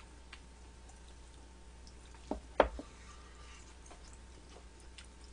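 Metal serving tongs clinking against the pot and a small dish while broth-soaked beef bulgogi and glass noodles are served. There are two sharp knocks a little past the middle, the second the loudest, among light clicks.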